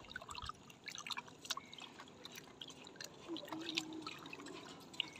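Hands sloshing and rubbing cleaned tilapia in a steel basin of water, with small splashes and drips. This is a second rinse to take away the fishy smell.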